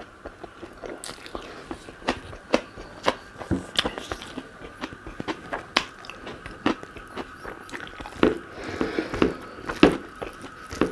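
Close-miked mouth sounds of a person eating: irregular wet clicks and smacks of chewing, several a second. A faint steady hum runs underneath.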